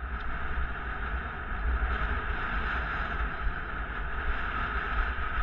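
Wind buffeting a moving camera's microphone, a low rumble over a steady hiss of road noise on asphalt, building over the first two seconds as speed picks up on a straight downhill.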